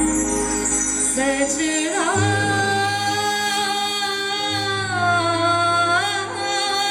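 A woman's voice holding a long wordless sung note that bends in pitch near the end, over a backing track with sustained low bass notes.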